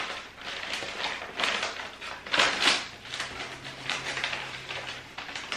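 Brown kraft paper wrapping rustling and crinkling as it is pulled open and unfolded by hand, in a string of irregular crackles with the loudest crinkles about halfway through.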